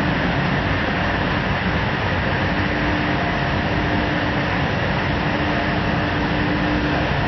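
Shaftless-unwinder slitting machine running: a steady mechanical rumble and hiss from the machine as the web travels over its rollers, with a faint hum that comes and goes.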